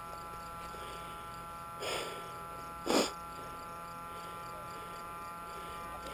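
Steady faint electrical buzz, with two short breathy puffs about two and three seconds in, the second one louder.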